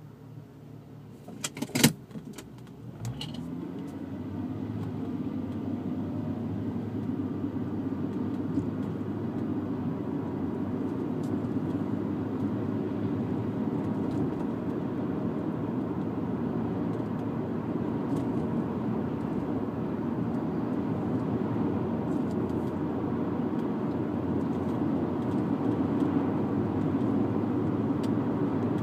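Jaguar XJ6 3.2's straight-six engine, heard from inside the cabin: a quiet idle with a couple of sharp clicks about two seconds in, then the engine rises in pitch as the car pulls away. It settles into a steady cruise, with engine and road noise slowly building.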